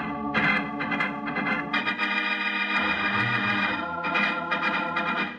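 Organ music playing a short bridge of sustained chords that shift every second or so, marking a scene change in a 1950s radio drama.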